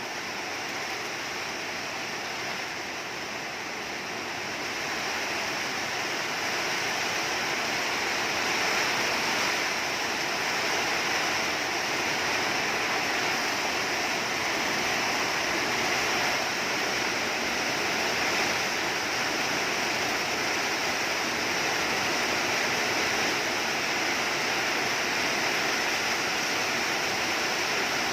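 Heavy rain falling steadily, with wind, getting louder about five seconds in and then holding at a steady downpour.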